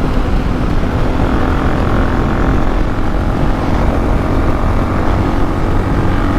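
Suzuki DR-Z400S single-cylinder engine running steadily at cruising speed, mixed with heavy wind noise on the microphone.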